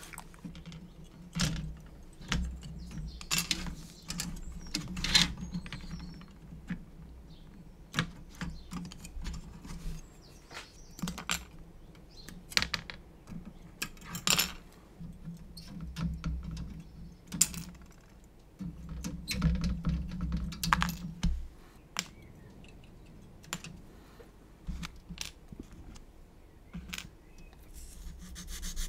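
Plastic model-kit parts being cut from the sprue and handled: irregular sharp clicks and snaps, about one a second, with low rustling handling noise between them.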